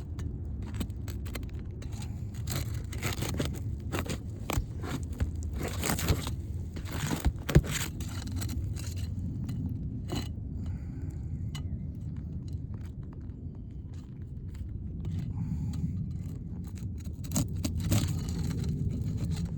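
Scraping, crackling and tearing of a brittle, worn three-tab asphalt roof shingle being pried up from its seal strip, with irregular sharp clicks and scrapes and one louder snap about seven seconds in, over a steady low rumble.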